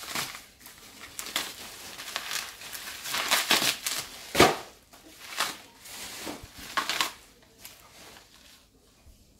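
Bubble wrap crinkling and crackling in irregular bursts as it is pulled off and unwound by hand, with one sharper snap about four and a half seconds in. The handling dies down near the end.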